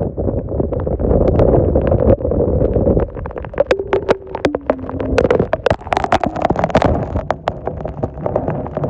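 Storm wind buffeting the microphone with a heavy rumble, broken by many sharp, irregular knocks and taps, most of them in the middle of the stretch.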